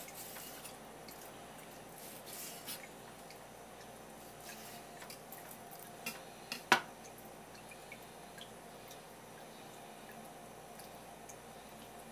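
Kitchen knife cutting and scraping raw tuna collar meat on a wooden cutting board: faint, wet, squishy cuts and scrapes, with one sharp knock a little past the middle.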